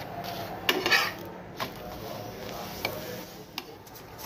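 Metal spatula clattering and scraping against a roti pan as a roti is pressed and turned. The loudest clatter comes about a second in, followed by a few single lighter clicks.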